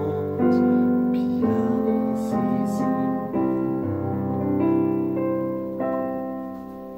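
Electric piano playing slow sustained chords, about five of them, under a man singing very softly, pianissimo. The music dies away as a decrescendo toward the end.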